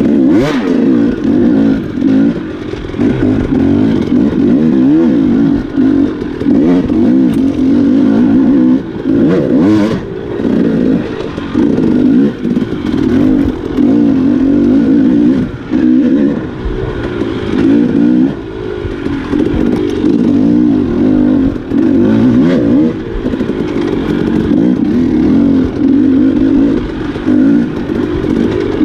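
Enduro dirt-bike engine revving up and down as the throttle is opened and rolled off over and over on a trail, with a couple of sharp knocks.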